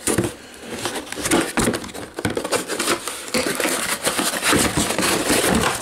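Cardboard boxes and packing being handled by hand and pulled out of a packed carton: continuous scraping and rubbing of cardboard on cardboard, with many small knocks and crinkles.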